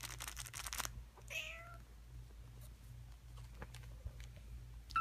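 Four-week-old kitten mewing: one wavering mew about a second and a half in and a short, higher mew at the end. It is preceded by about a second of rapid, scratchy rattling at the start.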